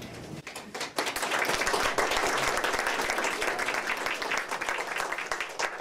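Audience applauding, starting about half a second in and thinning to scattered claps near the end.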